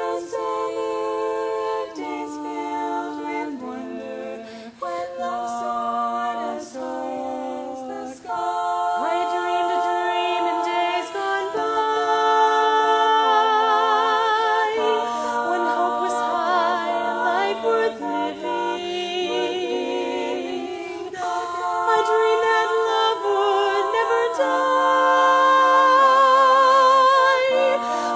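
Women's barbershop quartet singing a slow ballad a cappella in close four-part harmony: held chords that change every second or two, with vibrato on the sustained notes, swelling louder toward the end.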